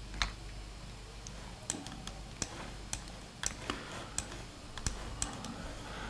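Sparse clicking at a computer: about ten separate sharp clicks spread unevenly over the seconds, over a faint low hum.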